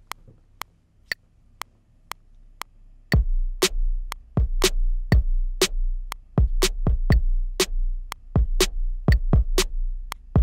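Studio One's metronome clicking about twice a second through the pre-count. From about three seconds in, kick and snare drum one-shot samples, triggered from the pads of a Native Instruments Maschine MK1, play a simple beat over the continuing click while it is being recorded.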